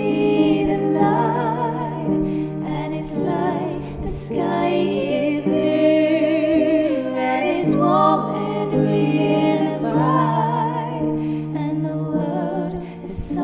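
A ballad playing: a sung melody with vibrato over a held instrumental backing.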